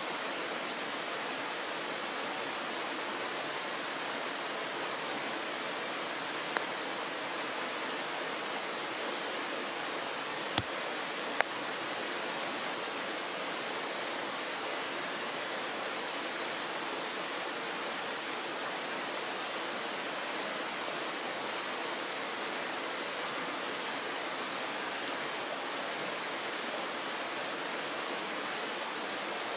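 Shallow mountain stream rushing steadily over a pebbly bed and a small riffle. Three short, sharp clicks stand out above it, one about six seconds in and two close together about ten to eleven seconds in.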